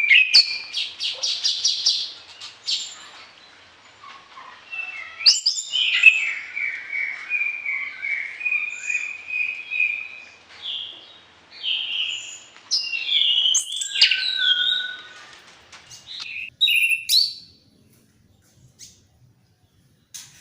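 Orange-headed thrush singing vigorously, a varied song of clear whistled phrases, fast trills and mimicked snatches, falling silent a few seconds before the end.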